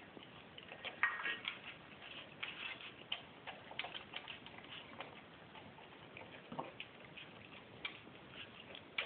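Dog eating watered-down food from a stainless steel bowl: irregular wet clicks and clinks of tongue and teeth against the metal bowl, a few a second, with one louder clink about a second in.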